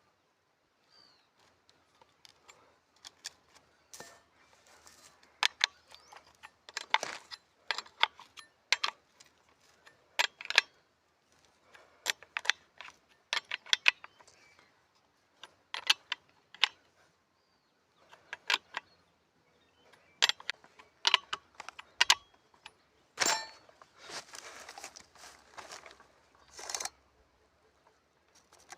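Irregular clicks, knocks and light metallic clatter, like small objects being handled, with a few short rustling passages in the last few seconds; no engine is running.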